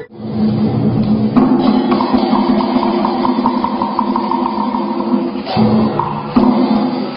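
Instrumental music with sustained pitched tones and drum strikes, starting abruptly after a brief cut.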